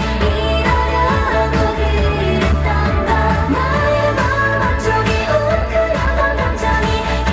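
K-pop girl-group dance-pop song played loud through a concert sound system: female singing over a steady, heavy bass beat.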